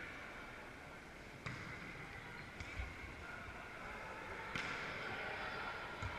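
A volleyball being struck by hand in a sports hall: two sharp hits about three seconds apart, with a couple of lighter knocks, over a steady murmur of spectators.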